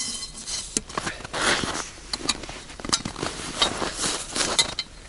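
Aluminium folding camp cot being put together: irregular clicks and clinks of its square metal tubes, with rustling of the fabric bed.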